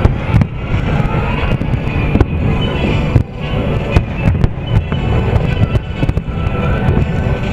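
Aerial firework shells bursting in a quick series of sharp bangs over music playing to accompany the display.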